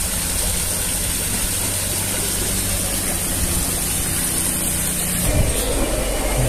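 An engine running with a steady low hum, which changes abruptly about five seconds in.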